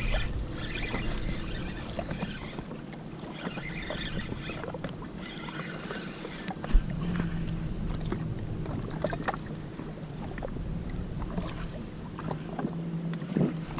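Water and wind noise around a Sea-Doo personal watercraft with a low steady hum. Scattered small clicks and knocks run through it, and one sharp knock comes about seven seconds in, while a hooked fish is brought in.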